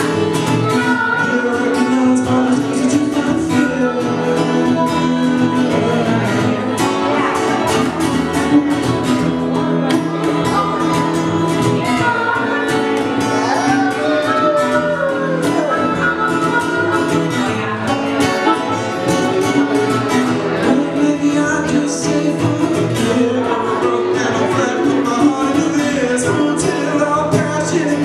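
Live acoustic band playing: acoustic guitar, plucked upright bass and harmonica played through a hand-held microphone, with a male voice singing.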